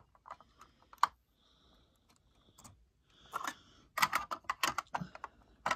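Plastic Lego pieces clicking and scraping as cockpit panels of a Lego Tantive IV model are pressed back into place. There are a few scattered clicks, then a quick run of clicks in the last two seconds.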